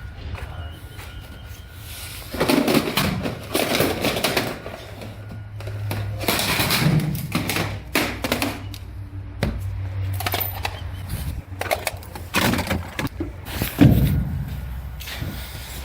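Irregular knocks, clatters and rustling of junk being handled and shifted, with scattered sharp clicks and louder stretches of rummaging.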